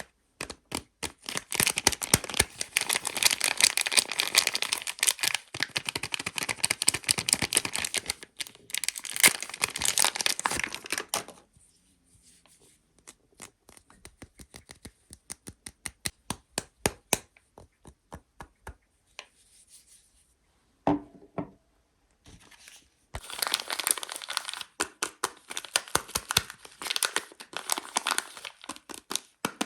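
Soap wrappers being torn open and crinkled by hand. The crisp crackling is dense for the first ten seconds or so, thins to sparse light clicks and a few knocks in the middle, and turns dense again near the end.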